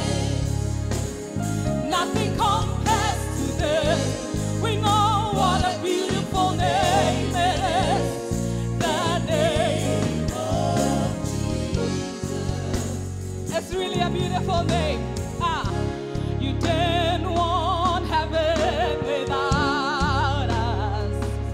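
Live gospel worship music: several singers on microphones singing with heavy vibrato over a band with a full, steady bass.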